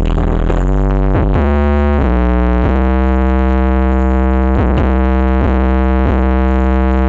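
Electronic pargoy dance music played loud through a large BMS Audio sound system. Held synthesizer tones shift pitch every second or so over a deep, steady bass.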